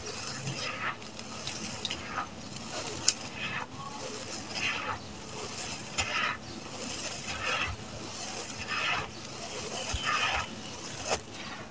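Dry, gritty sand-cement mix crumbling between the hands and sifting into a clay pot saucer. It makes a run of rustling, crunchy pulses about a second apart, with a few sharp clicks of grit.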